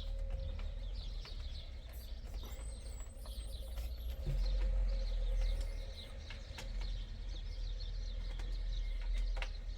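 Small birds chirping repeatedly in the background, with a few light clicks and knocks of parts being handled over a low rumble.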